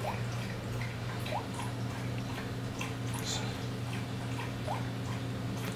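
Steady low hum with faint scattered ticks, and three brief rising chirps spread through it.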